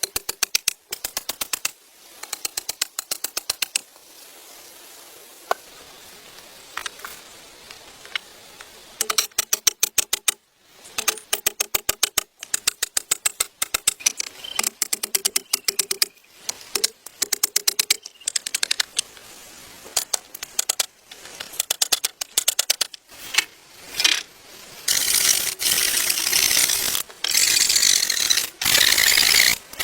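Bursts of rapid mechanical clicking, each lasting about a second, repeated with short pauses between them. Near the end the clicking gives way to a denser, steadier rasping noise.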